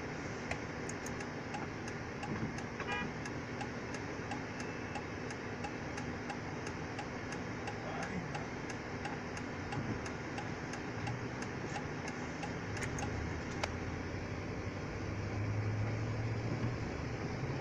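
Car's turn-signal indicator ticking about twice a second inside the cabin over the idling engine; the ticking stops about three-quarters of the way through, and the engine note rises as the car moves off.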